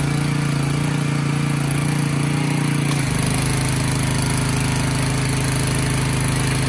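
Gasoline pressure washer's small engine running steadily, with spray hiss; its note shifts slightly about three seconds in.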